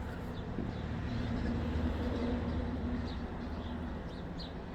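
A heavy vehicle, which the man takes for a fire engine, passing with a steady low drone that swells in the middle and then fades. A few short bird chirps come over it.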